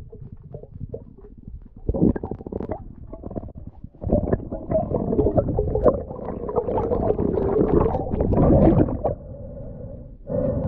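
Underwater bubbling and gurgling of air bubbles streaming past, with a short burst about two seconds in and a louder, steady churn from about four seconds in that eases off near the end.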